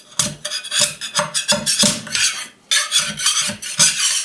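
A scraper rasping over a resin printer's build plate in quick repeated strokes, about three a second with a short pause about halfway, prying thin cured resin test prints off the plate.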